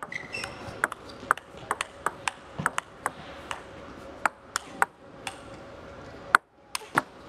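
Table tennis rally: the celluloid ball clicking off the paddles and the table in a quick, uneven run of sharp ticks, about two to three a second. The loudest crack comes about six seconds in, followed by a brief silence.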